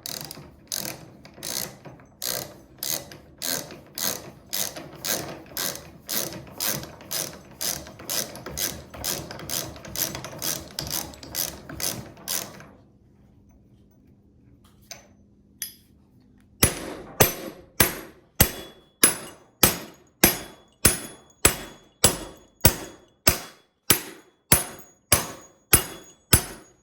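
Flat hammer end of a Milwaukee lineman's ratcheting wrench striking a bolt over and over to drive it out. The metal-on-metal blows come about two a second. They stop for a few seconds just past the middle, then resume harder and ringing.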